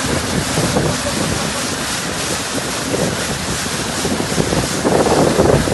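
Wind buffeting the microphone over the rush and hiss of water along the hull and spray off the bow of a small sailboat sailing fast under gennaker. It gets louder near the end.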